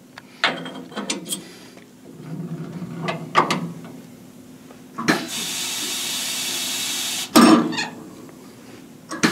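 Metal tooling clicking and tapping on a cast-iron big-block Chevy cylinder head while a bowl-hog cutter is set up on the seat-and-guide machine. Then a steady hiss runs for about two seconds, cuts off suddenly and is followed at once by a loud clunk.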